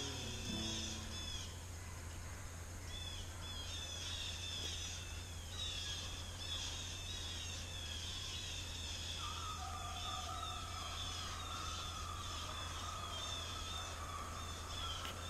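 Woodland ambience with small birds chirping in quick, high, repeated notes. From about nine seconds in, a distant deer hound bays in long, drawn-out howls while on a deer's scent.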